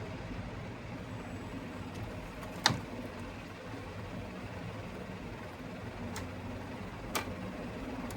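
Steady low mechanical hum with three sharp clicks, the first and loudest about two and a half seconds in, the others near the end.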